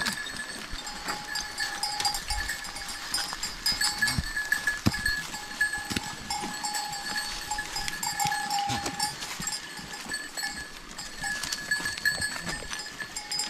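Bells on a herd of goats ringing on and off as the animals jostle, over scattered clicks of hooves and loose stones.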